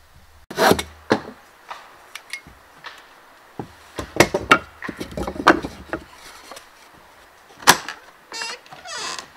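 Wooden boards knocking and clattering as they are handled and laid on a plank platform, a series of sharp irregular knocks. Near the end come two short rasping whirs.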